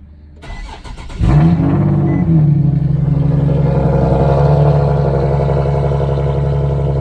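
Nissan 370Z's 3.7-litre VQ37VHR V6 cold-started: a brief crank, then it catches about a second in, flares up in revs and settles into a steady fast cold idle.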